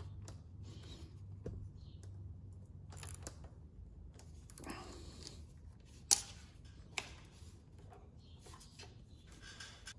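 Socket wrench with an 8mm socket on an extension working a bolt: scattered short ratchet clicks and metal taps, with a sharp click about six seconds in and another about a second later.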